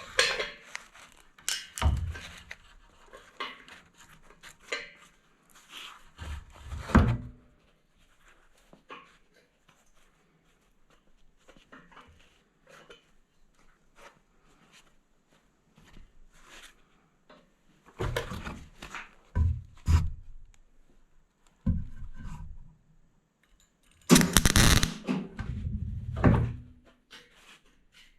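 Steel parts clanking and thunking as they are handled and set in place, in scattered knocks and clatters with quiet gaps between.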